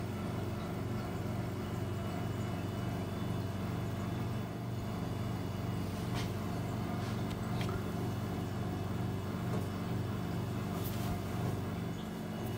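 Steady low machine hum, with a few faint clicks over it.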